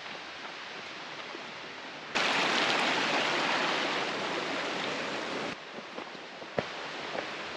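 Rushing mountain creek, a steady roar of water running over rocks. It grows much louder for a few seconds in the middle, then drops back.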